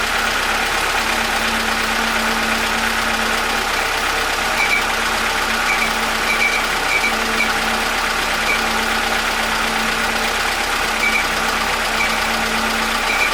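Homemade air compressor running steadily, a constant mechanical hum with short high squeaks every so often.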